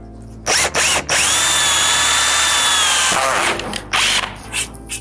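Cordless drill boring out a mounting hole in a metal scooter deck with a larger bit. It gives a couple of short trigger blips, then a steady run of about two seconds with a high whine, which winds down. One more brief blip comes near the end.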